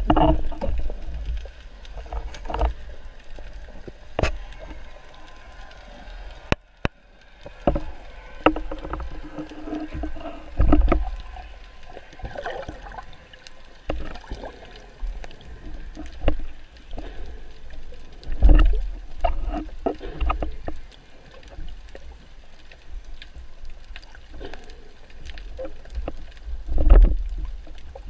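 Muffled underwater knocks, clunks and water movement picked up by a camera on a speargun while the spear shaft, line and speared fish are handled. Irregular small knocks over a low rumble, with louder low thumps about 11, 18 and 27 seconds in.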